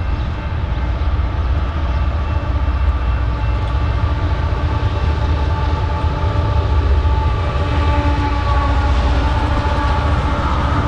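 BNSF empty oil unit freight train running past, a heavy continuous low rumble with faint steady tones above it, slowly growing louder.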